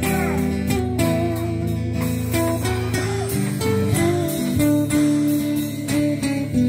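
Music: an acoustic guitar strumming chords, the instrumental part of a song between sung lines.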